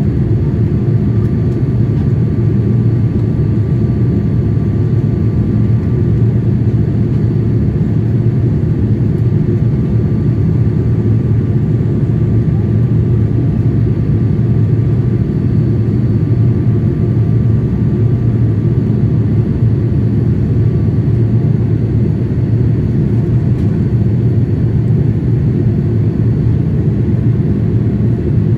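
Steady cabin noise of a Boeing 787-8 airliner in flight: a deep, even drone of engines and rushing air, with faint steady whine tones above it.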